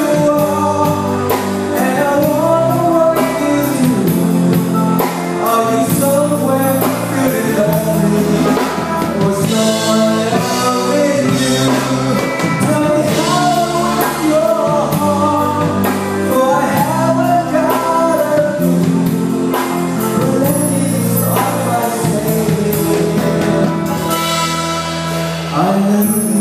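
Live band music with a singer: an electronic keyboard and a guitar play a song while a voice sings the melody over them.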